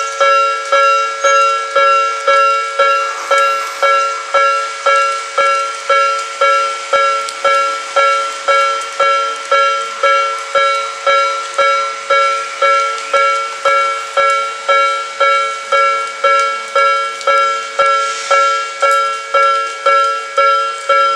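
Hakone Tozan Railway level-crossing warning bell ringing steadily, a ringing ding repeated about twice a second, each strike dying away quickly.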